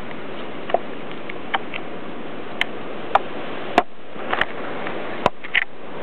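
A Madagascar fody's beak tapping on a wooden deck as it pecks up scattered grains: about nine sharp, irregular ticks over a steady hiss.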